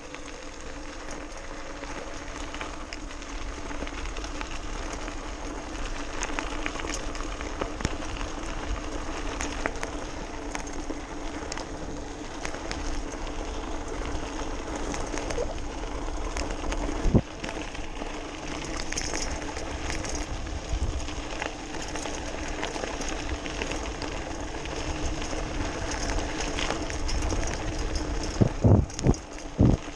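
An electric BMX bike being ridden over a gravel trail: the motor hums at a steady pitch under a constant rush of tyre and gravel noise, with scattered rattles and clicks from the bike. One sharp knock comes about halfway through, and a few loud thumps from bumps come near the end.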